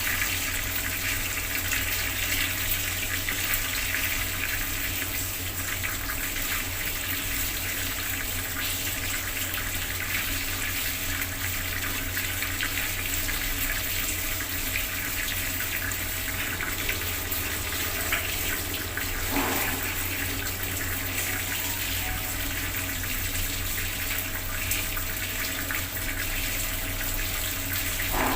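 Bathroom water tap running steadily, its stream splashing down without a break.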